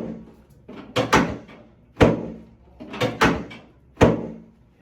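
Chiropractic drop table's pelvic section dropping under quick thrusts: four sharp knocks about a second apart, two of them doubled. It is a drop-technique adjustment of the hip and pelvis.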